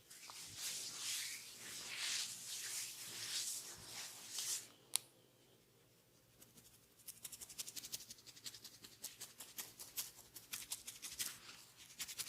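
Hands working an oiled scalp and hair in a head massage: a few seconds of rubbing swishes, a single sharp click about five seconds in, then, after a short lull, a rapid run of light taps on the head.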